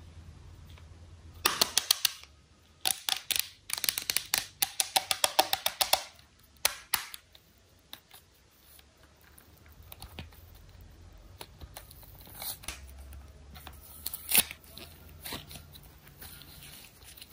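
Hands working slime and a plastic toy capsule. Two dense runs of rapid sharp clicks and pops come in the first seven seconds, followed by quieter scattered clicks with one sharp click near the end.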